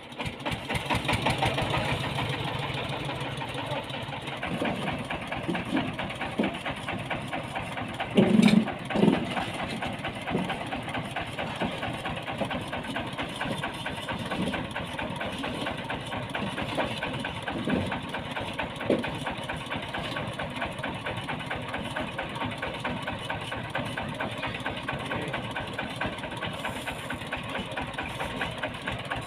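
Diesel engine of a homemade ledok dump truck idling with a fast, even chug. Two louder bursts stand out about eight and nine seconds in.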